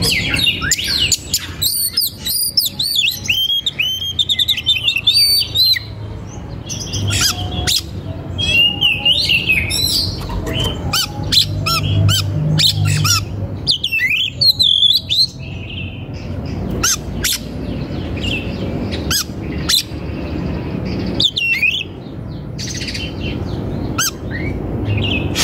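Birds chirping and twittering in quick, bending notes, with many sharp clicks mixed in.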